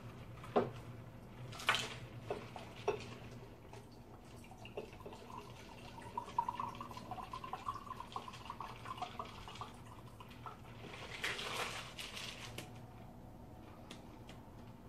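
Liquid poured into a glass, a wavering trickling pour lasting several seconds in the middle. A few clinks of glass and bottles being handled in the first three seconds, and a short rush of noise about eleven seconds in.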